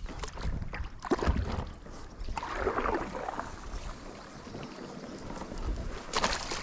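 Water sloshing and lapping against a kayak hull while wind buffets the microphone, with a few short knocks and splashes.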